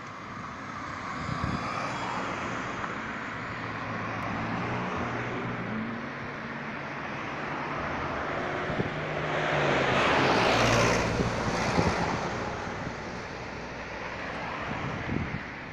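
Road traffic: cars driving past on a two-lane road, with steady engine and tyre noise. About ten seconds in, a car passes close and the sound swells to its loudest before fading again.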